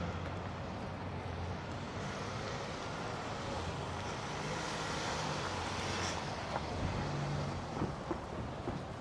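Car driving along a street: steady engine hum and road noise, swelling for a couple of seconds around the middle, with a few light knocks near the end.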